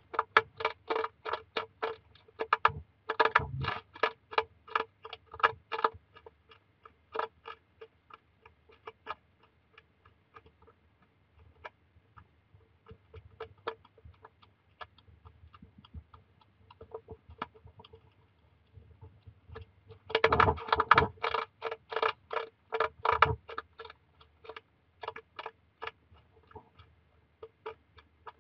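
A hedgehog crunching and chewing dry biscuit food from a bowl: fast runs of crisp crunches near the start and again about two-thirds of the way through, with slower, scattered chewing clicks in between.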